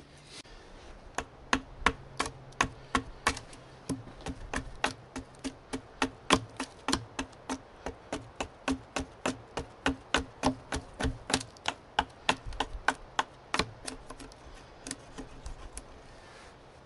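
Hatchet chopping down the length of a wooden throw stick held upright, taking wood off its underside in short, even strikes, about three a second. The strikes start about a second in and stop near the end.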